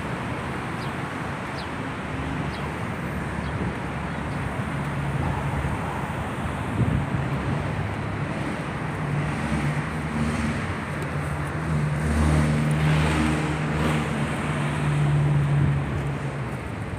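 City roadway traffic noise with a steady hiss. A motor vehicle's low engine hum builds through the middle, is loudest a few seconds before the end, then eases off.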